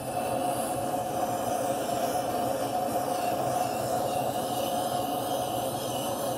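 Gas torch flame burning steadily with a constant rushing noise, played into a small pot to melt pewter for casting.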